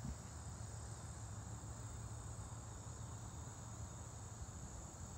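Insects in the summer trees trilling steadily, a continuous high-pitched chorus over a low background hum.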